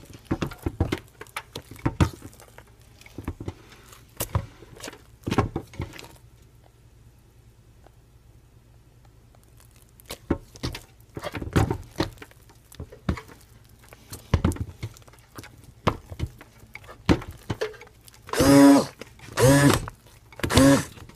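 Stick blender knocking against the crock pot as it is worked by hand through stiff hot-process soap paste, with irregular clicks and soft thuds. Near the end the blender motor is run three times in short bursts, each a loud, pitched hum in the thick paste.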